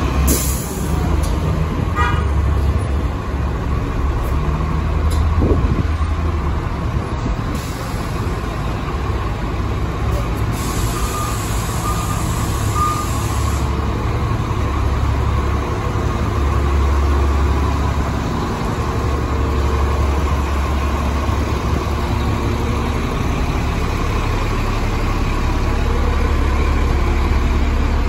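Diesel engine of a 2007 Orion VII transit bus running steadily, a low, even drone.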